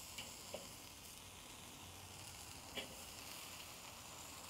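Sauce-coated chicken drumsticks sizzling on a hot charcoal grill grate, with a few light clicks of metal tongs against the grate, near the start and about three seconds in.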